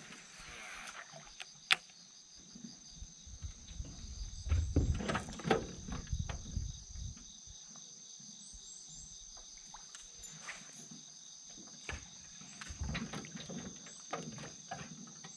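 Steady high insect chorus droning throughout, with scattered sharp clicks and a cluster of low knocks and rumbling about four to seven seconds in.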